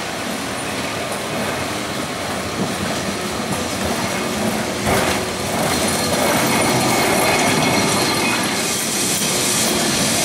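Historic Lisbon electric tram, car 541, running on its street rails as it passes close by, its wheels rumbling and clattering on the track. There is a sharp knock about five seconds in, and the sound grows louder as the tram comes alongside.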